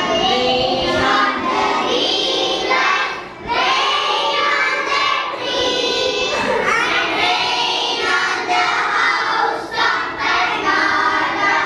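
A class of young children reciting a poem together in unison, in a sing-song chant, phrase by phrase with short breaks between lines.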